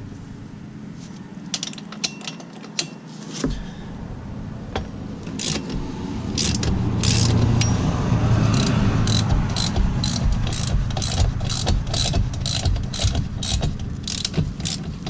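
A socket ratchet clicking as it loosens the rear axle nut of a Honda Grom motorcycle: a few scattered clicks at first, then from about five seconds in a steady run of clicks, about two a second.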